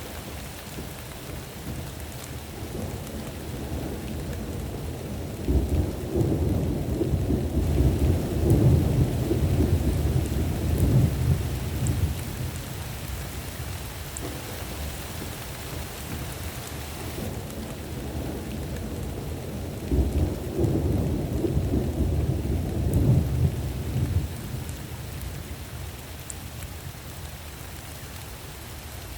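Steady rain with two long rolls of low rumbling thunder, the first starting a few seconds in and the second about two-thirds of the way through.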